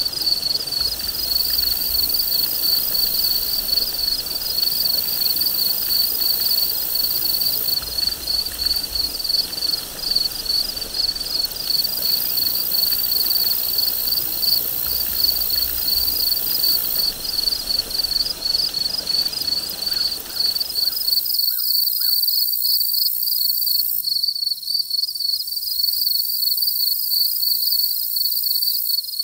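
Insect chorus trilling in a fast, even pulse, with a higher insect hiss that comes and goes. A low, even rushing noise underneath cuts off abruptly about twenty-one seconds in.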